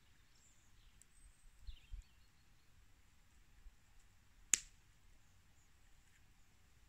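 Quiet smouldering campfire with one sharp crack of wood about four and a half seconds in, as the sticks in the fire are being tended.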